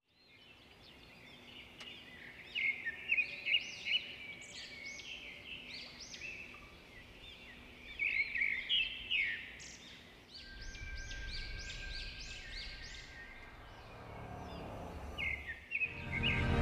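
Birds chirping and singing in quick, repeated calls, loudest in a few clusters. A low, steady rumble comes in about ten seconds in and runs under the birdsong.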